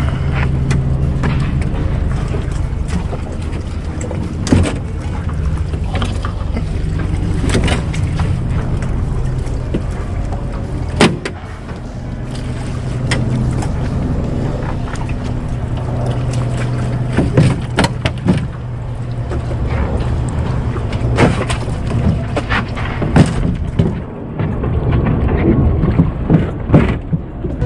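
Knocks and thumps on an aluminium flat-bottomed boat's hull and plywood floor as someone steps about and moves wooden boards, over a steady low hum.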